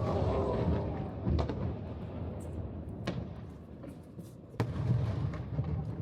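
Aerial fireworks shells bursting, a sharp bang about every one and a half seconds over a low rumble of distant explosions.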